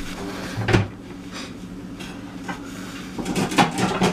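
Dishes being handled while a plate is fetched: a single knock about a second in, then a run of clinks and knocks near the end.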